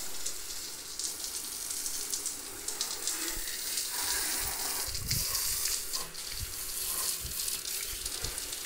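Water from a garden hose spraying onto a motorcycle, a steady hissing splash, with a few dull knocks near the middle.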